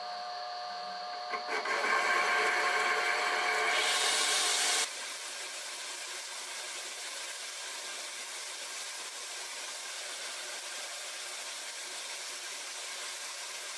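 A small lathe runs with a steady motor whine. About a second and a half in, a louder, rougher cutting noise starts as the tool turns a taper on a metal bar. After a few seconds it drops to a steady hiss.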